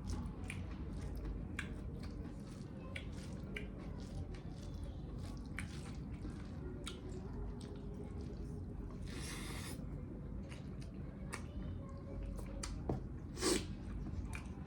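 Close-up wet mouth sounds of someone chewing and biting pieces of spicy mutton in gravy: many small squishy clicks and smacks, with a short hissing burst about nine seconds in and a louder smack near the end.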